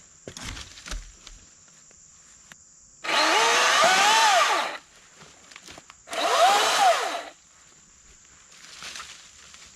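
Milwaukee M18 Fuel 14-inch top-handle battery chainsaw run in two short bursts, its electric motor whining up in pitch and winding back down each time.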